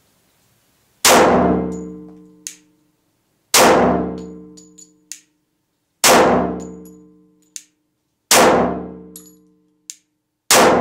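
Glock 24C compensated pistol in .40 S&W firing five shots at an even pace, about two and a half seconds apart. Each shot echoes and dies away over about a second off concrete walls. A short sharp click follows each of the first four shots.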